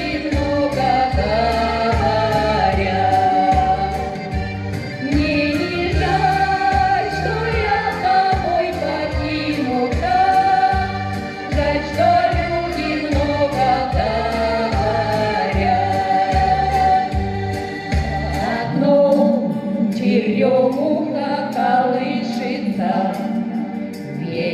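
Two women singing a Russian song over a backing track with a steady, regular bass line; the bass drops out about eighteen seconds in, leaving the voices and higher accompaniment.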